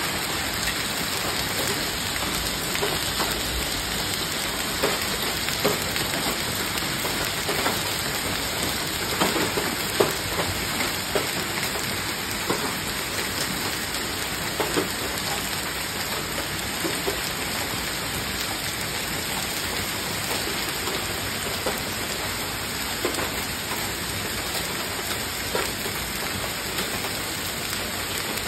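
Heavy rain mixed with hail coming down: a steady, dense hiss with scattered sharp taps of stones striking nearby surfaces.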